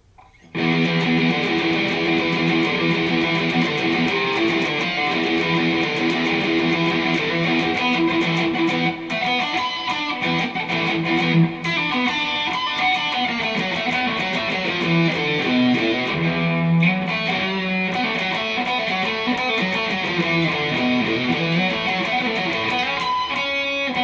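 Telecaster electric guitar through a Marshall amp playing a riff that moves into improvised lead lines, starting about half a second in. The guitar's volume and tone knobs are rolled back, which the player later blames for it sounding weaker than intended.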